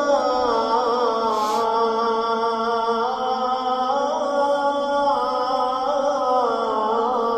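A solo voice chanting Islamic recitation in long held notes that bend slowly up and down, without a break. A brief hiss comes about a second and a half in.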